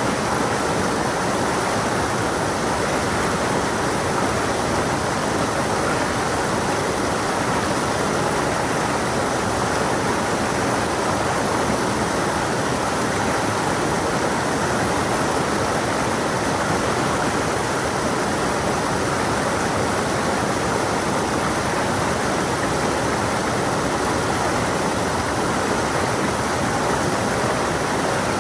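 Stream of water flowing and splashing over rocks, a steady rushing babble without pauses.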